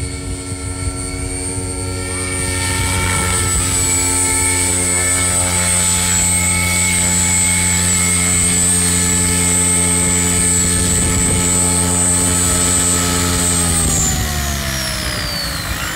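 RC helicopter rotor and motor running steadily with a high whine, getting louder about two seconds in, then spooling down with a falling pitch near the end.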